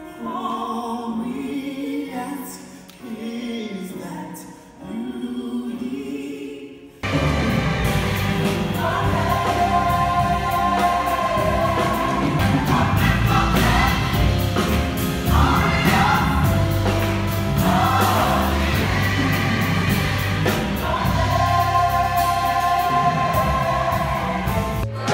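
Large choir singing on stage. About seven seconds in, it jumps abruptly from sparser, quieter singing to full, louder singing with a band of drums, electric guitar and piano underneath.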